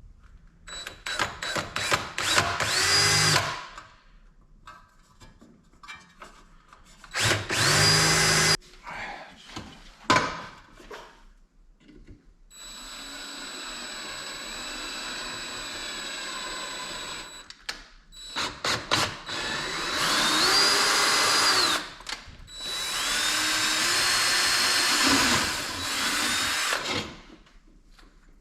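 Power drill boring holes in aluminum angle, run in several bursts of a few seconds, its motor whine climbing as it spins up and dropping as it stops, with short trigger blips between and one steadier run in the middle.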